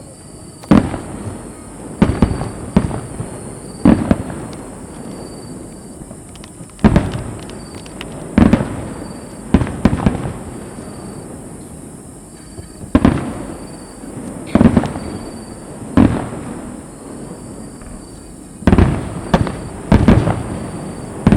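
Aerial firework shells bursting in a rapid display, about fifteen sharp booms at irregular gaps of half a second to three seconds, each trailing off into a rolling rumble.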